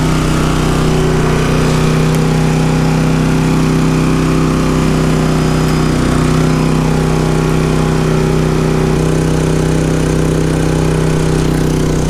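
Champion 3400 dual-fuel inverter generator's single-cylinder engine running steadily on propane, out of eco mode, with a slight change in its note about nine seconds in.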